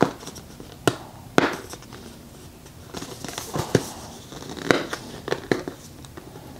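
A taped package being handled to open it: scattered sharp clicks and knocks among crackling rustles.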